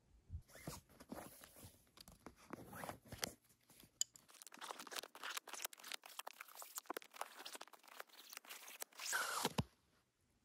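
A bootlace being worked loose and pulled through the eyelets of a suede hiking boot: a dense run of small scratchy, crunching ticks, with a louder zipping pull just after nine seconds as the lace is drawn out quickly.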